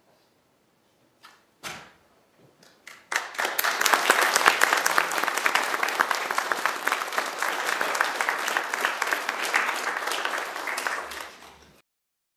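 People applauding: a few scattered claps at first, then steady clapping from about three seconds in that fades near the end and stops abruptly.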